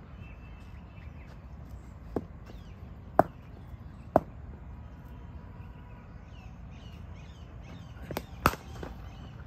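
Sharp wooden knocks of cricket bat and ball: one, then two about a second apart, and a close double crack near the end, the loudest of all. Birds chirp faintly in between.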